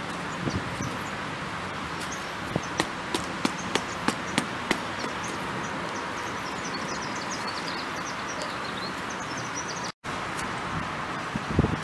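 A spade cutting into turf and soil: a quick run of sharp ticks about two and a half to five seconds in and a few low thuds near the end, over steady outdoor background noise with birds chirping faintly.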